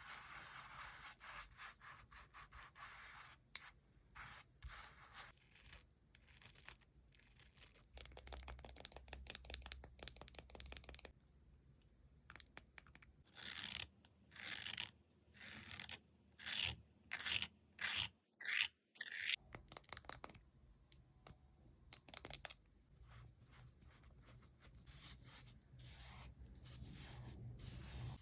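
Close rubbing and scratching strokes of makeup or skincare tools on a melon's rind, in bursts: a stretch of fast scratching about eight seconds in, then a run of separate longer strokes, with one sharper stroke near the end.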